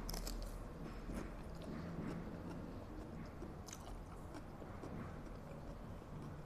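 A woman chewing a mouthful of spicy instant fried noodles and fried egg close to a lapel microphone: soft wet mouth sounds with many small scattered clicks, over a faint steady low hum.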